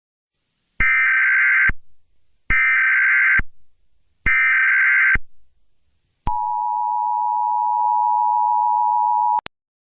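Emergency Alert System header: three short bursts of buzzing SAME data tones, each just under a second long, then the steady two-tone EAS attention signal held for about three seconds. It cuts off with a click. This sequence marks the start of a new emergency alert.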